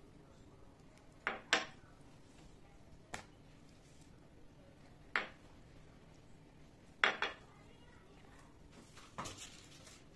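About seven short, sharp clinks and knocks of kitchenware, some in pairs, a second or two apart, as a silicone basting brush is dipped and tapped in a ceramic bowl of spiced oil and eggplant slices are brushed and handled.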